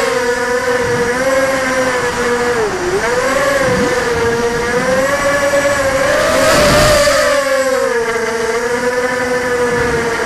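ZMR250 racing quadcopter's motors and KingKong 5040 propellers whining as heard from its onboard camera, the pitch wavering up and down with the throttle. The pitch dips briefly about three seconds in, and there is a louder, noisier surge about six to seven seconds in.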